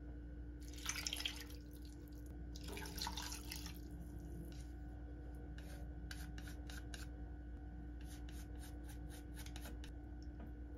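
Liquid poured into an enamelled cast-iron pot of chicken drumettes in two short pours, then a run of light clicks and taps as chopsticks scrape chilli bean paste off a wooden spoon into the pot.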